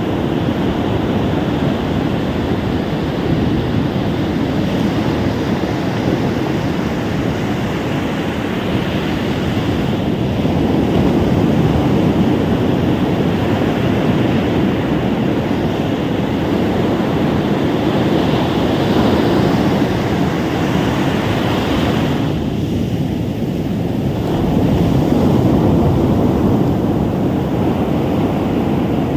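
Ocean surf breaking and washing up a beach: a continuous rushing rumble that swells louder twice as bigger waves come in.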